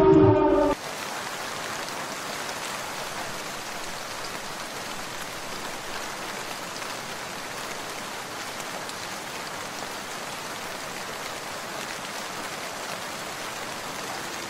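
A loud, steady chord of tones cuts off abruptly under a second in. It gives way to a steady, even hiss of noise like heavy rain.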